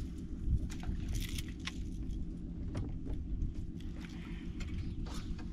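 Steady low rumble of wind on the microphone, with scattered small clicks and taps from a fishing rod and casting reel being handled in a kayak.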